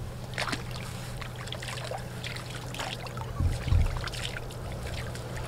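Light splashing and trickling of water as a small carp is released by hand into the river at the reed edge, with a soft low thump about three and a half seconds in, over a steady low hum.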